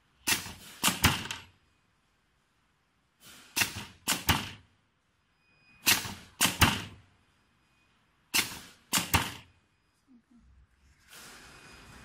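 Pneumatic wire stripping machine running four stripping cycles about two and a half seconds apart. Each cycle is a quick cluster of two or three sharp clacks from its air cylinders clamping and pulling the insulation off a wire.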